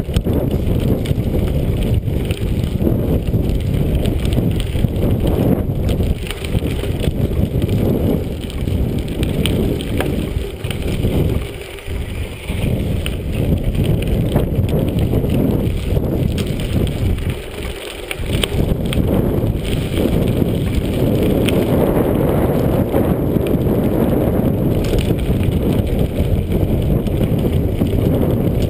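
Mountain bike rolling along a dirt and rock singletrack: a steady rumble of tyres on the trail, with many small rattles and clicks from the bike. The noise dips briefly twice near the middle.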